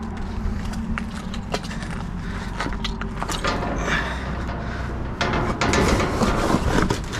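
Clattering, knocking and rustling of junk being moved and searched through, irregular short knocks over a steady low hum.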